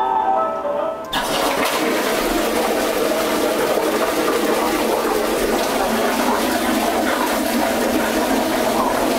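Music playing in the cubicle gives way about a second in to the sudden rush of an Exeloo automatic public toilet's stainless steel pan flushing, a loud, steady rush of water that carries on without a break.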